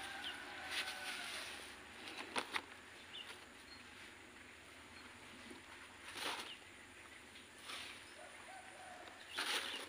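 Hands pressing coarse potting medium around a cutting in a plastic polybag: short scattered rustles and crunches with a couple of small clicks, loudest near the end. Faint bird calls sound in the background.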